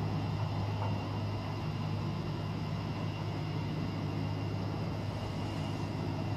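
Steady low mechanical hum, even throughout, with faint high whining tones above it.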